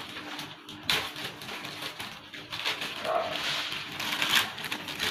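Clear plastic bag crinkling and rustling as a motherboard wrapped in it is handled and lifted, with a sharp knock about a second in and busier crinkling in the second half.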